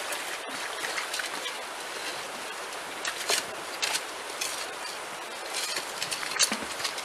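Shallow stream running over stones, with splashes and gritty scrapes of a shovel digging into the gravel streambed. The digging sounds come as a run of short, sharp hits from about three seconds in, the loudest near the end.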